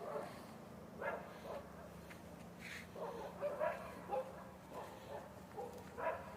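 A dog giving short, intermittent yips and whimpers over a steady low hum.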